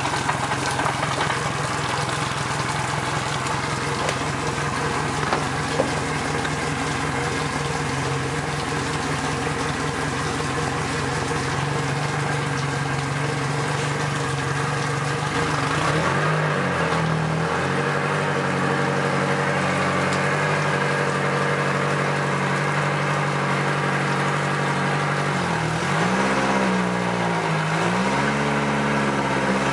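Yamaha 115 outboard motor running on a stand out of the water, with cooling water splashing from its lower unit. It holds a steady idle, is revved briefly about halfway through, then revved up and down a few times near the end.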